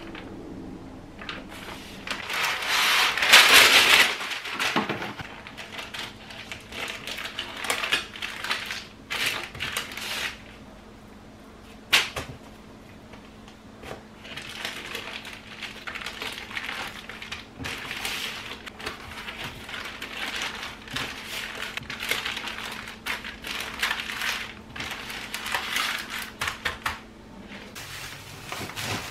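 Plastic bacon packaging and sheets of baking paper crinkling and rustling in irregular bouts as raw bacon slices are pulled out and laid out, loudest a few seconds in, with a single sharp click about twelve seconds in.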